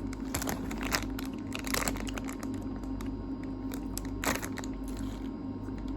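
A few short clicks and crinkling rustles from handling objects, over a steady low hum.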